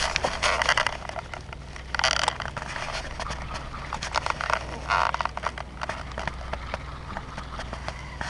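Handling noise on a body-worn camera's microphone: clothing rustling and scraping in short bursts, with many scattered sharp clicks, as a short fishing rod and small reel are picked up and worked, over a steady low hum.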